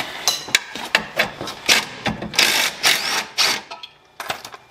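Cordless DeWalt driver with a socket extension, run in short, irregular bursts on a bolt under the car.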